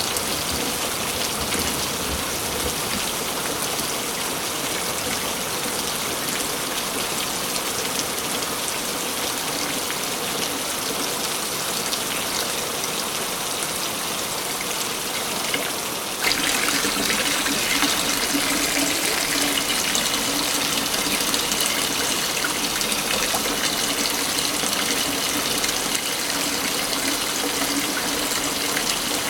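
Waterfall: a steady rush of falling water. A little over halfway through it turns abruptly louder and brighter.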